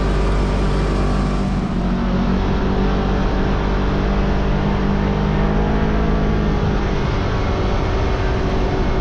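Side-by-side UTV engine running steadily while driving, at an even, unchanging engine speed.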